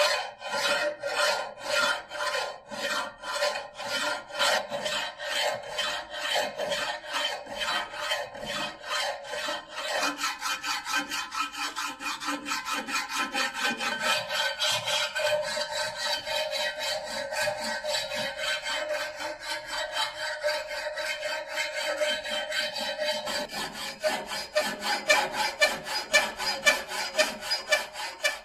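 Flat steel hand file scraping back and forth across a pitted steel knife blade clamped in a vise, in an even rhythm of about two to three strokes a second that quickens to about four a second partway through.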